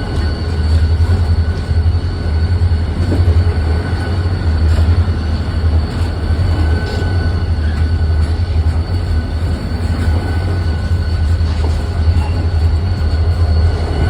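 A train running, a loud steady low rumble with a faint steady whine above it and a few light clicks.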